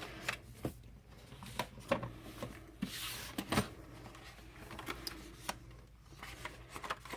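Paper rustling with scattered light clicks and taps as a disc-bound planner is handled and its pages are leafed through, with one sharper tap about three and a half seconds in.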